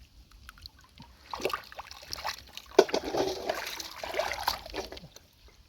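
Hands working in shallow muddy water, splashing and sloshing in irregular bursts, with one sharp splash about three seconds in.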